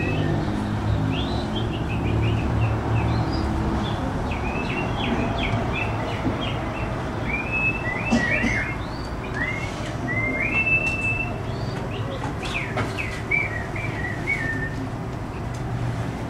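Birds chirping: many short chirps and whistled calls, some rising and some falling, over a low steady hum that stops about four seconds in.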